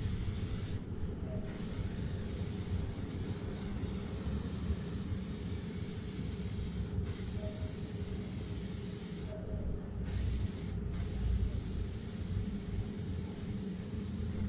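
Aerosol spray-paint can hissing as paint is sprayed onto a wall in long passes. The hiss breaks off briefly about a second in and twice around ten seconds in, where the nozzle is released. A steady low rumble runs underneath.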